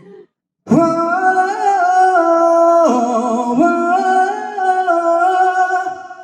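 A single voice singing a phrase of long held notes that step up and down in pitch, starting suddenly about a second in.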